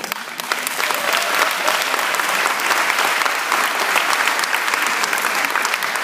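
Audience applause, a dense patter of many hands clapping that swells over the first second, then holds steady and loud.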